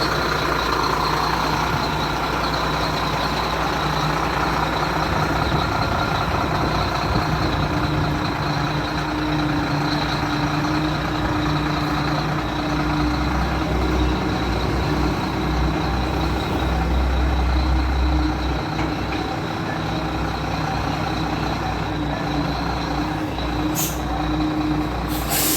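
Diesel engine of a Howo 340 concrete mixer truck running steadily, a deep rumble with a steady whine over it, and a short hiss near the end.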